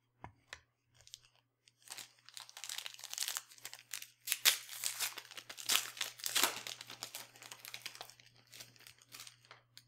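A trading-card pack wrapper being torn open and crinkled. A dense crackle starts about two seconds in and is loudest in the middle.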